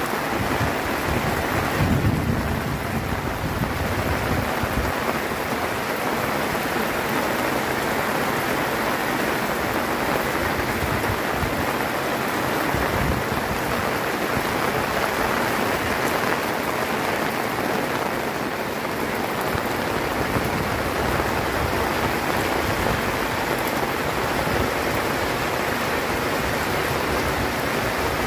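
Heavy rain falling steadily on the rooftop and the surrounding roofs. A brief low rumble comes about two seconds in.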